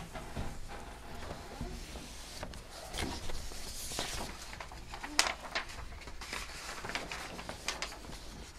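Papers rustling and shuffling with small scattered clicks and knocks on a meeting table, over a steady low room hum; one sharper knock about five seconds in.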